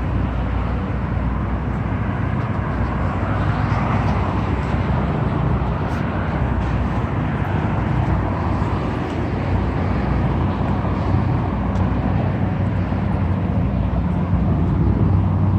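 Steady rumble of city street traffic with a low engine hum, swelling about four seconds in as a vehicle passes.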